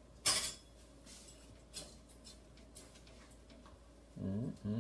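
A metal serving spoon clinks sharply once against a cooking pot, followed by a few light ticks as cooked rice is turned over in the pot. A brief voiced sound comes near the end.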